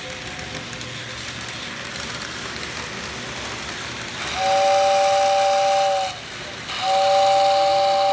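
A model train running along its track, then its whistle blowing twice. The whistle is a steady two-note chord with a breathy hiss: the first blast lasts about two seconds, and the second starts a little later and is held longer.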